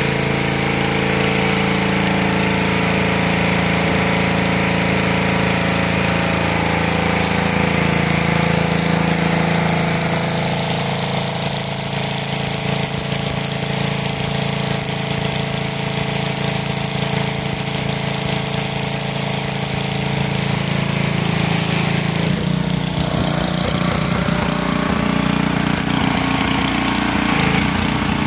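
A pressure washer's small engine running steadily, under the hiss of the high-pressure spray from the wand striking a concrete patio. The sound shifts about three-quarters of the way through.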